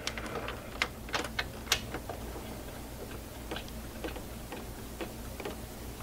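Light clicks and taps of a replacement starter motor and its mounting bolts being handled and lined up by hand in the engine bay. There are several in quick succession in the first two seconds, then they come fainter and further apart, over a steady low hum.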